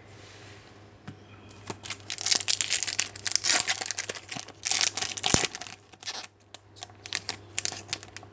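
Crinkling and rustling as trading cards and their packaging are handled, densest in the middle, then thinning to a few light clicks near the end.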